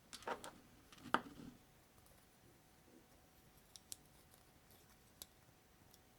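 Small plastic building bricks clicking and knocking as they are handled and pressed together. A cluster of clicks comes in the first second and a half, the loudest just over a second in, then a few faint ticks follow later.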